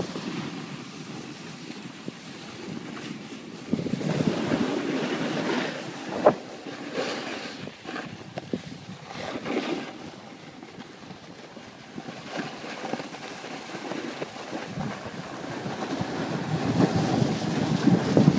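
Wind buffeting the microphone over the hiss and scrape of edges sliding on packed snow during a run down a groomed slope, rising and falling in waves. There is one sharp knock about six seconds in.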